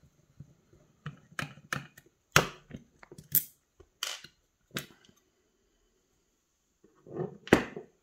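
Sharp metal clicks and knocks as a screwdriver, a screw and the lock's round cylinder are handled against the steel lock case and set down on a wooden table while the cylinder is removed: a scattered run of clicks, a pause, then a louder knock near the end.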